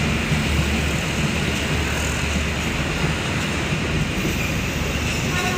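Tawang Jaya passenger train passing by, its cars making a steady rumble on the track.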